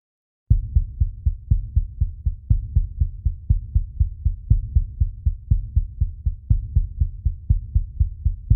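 Heartbeat sound effect: a fast, steady lub-dub heartbeat, about two beats a second, deep and low, over a steady low hum. It starts about half a second in.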